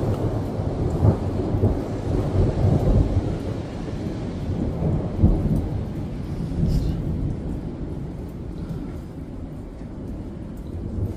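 Long rolling thunder rumbling deeply, loudest over the first few seconds and then slowly fading away.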